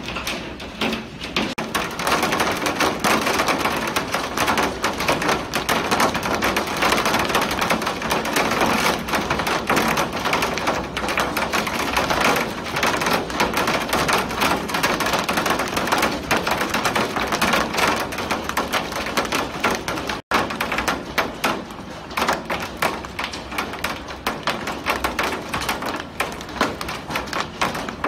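Heavy hailstorm: hailstones pelting window glass and the ground in a dense, continuous clatter of countless small hits over the rush of the storm. The sound cuts out for an instant about two-thirds of the way through.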